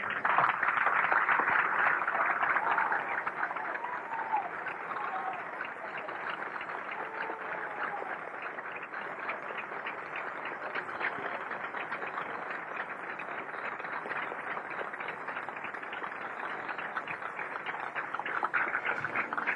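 Large crowd applauding, loudest in the first couple of seconds, then steady.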